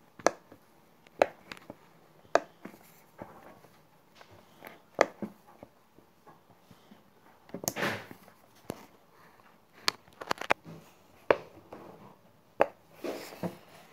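Silicone pop-it bubbles pressed one at a time with a finger, each giving a sharp pop, at irregular intervals with a few in quick succession about ten seconds in. A brief rustle of the notebook being handled comes about eight seconds in.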